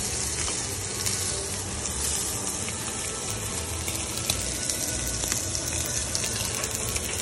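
Sesame-crusted bonita slab searing in oil in a hot nonstick skillet: a steady sizzle with scattered small pops and crackles.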